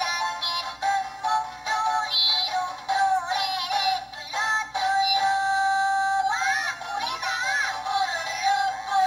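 Background music: a cheerful song with a high-pitched, synthetic-sounding singing voice.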